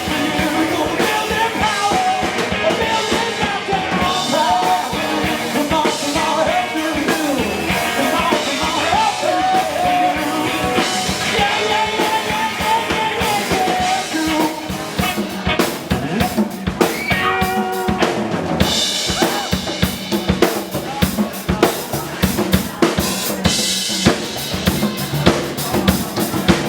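Live rock band playing the closing section of a song, drum kit prominent over keyboard and guitar lines; about halfway through the drums take over with rapid, dense hits.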